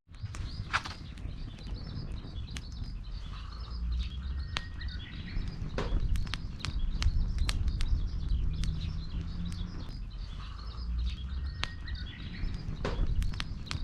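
Small birds chirping busily in the background over a steady low rumble, with scattered sharp clicks and snaps throughout.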